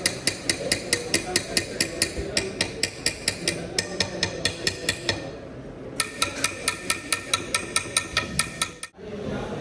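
Rapid hammer strikes on metal, about five a second, each with a short ringing ping, in two runs with a pause about five seconds in. The sound cuts off suddenly near the end.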